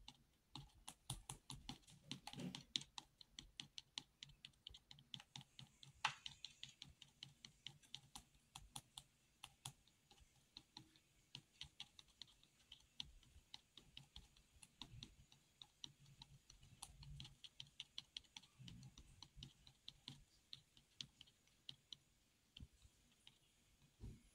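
Faint, rapid, irregular clicking, several clicks a second, with one louder click about six seconds in.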